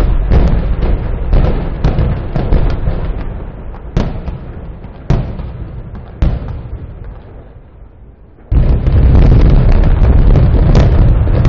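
Building implosion: a rapid string of sharp, echoing blasts from the demolition charges, thinning out and fading over several seconds. About eight and a half seconds in, a loud, steady rumble sets in suddenly, the sound of the building collapsing.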